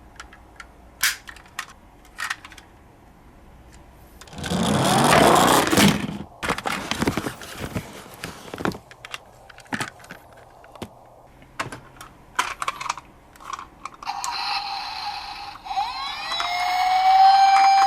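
Scattered clicks and knocks from a toy police car being handled, with a loud burst of scraping noise about four seconds in. Near the end the toy's electronic siren starts, its pitch sliding up and then down.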